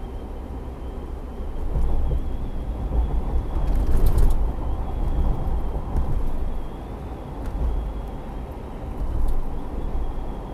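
A car driving, heard from inside: steady low road and engine rumble that swells and eases a few times, with a faint thin high whine running under it. A brief sharp rattle about four seconds in.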